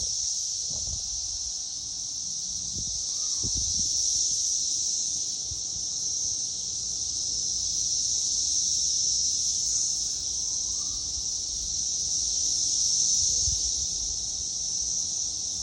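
Cicadas singing in a chorus: a continuous high-pitched buzzing drone that slowly swells and eases in loudness.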